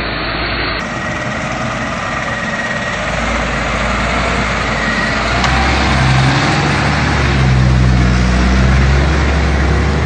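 Coach bus's diesel engine running at low revs as the bus crawls past at close range over a rutted dirt road. The low engine note grows steadily louder through the second half as the bus nears.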